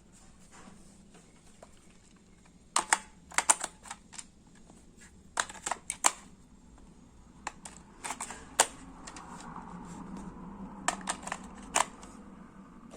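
Sharp plastic clicks and taps in small clusters, from small hard parts being handled and snapped, with a faint soft hum between them near the end.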